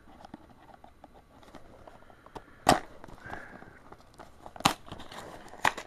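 A small cardboard Kidrobot blind box being pried open by hand: faint rustling and ticking with a few sharp snaps of cardboard, the loudest about two and a half and four and a half seconds in.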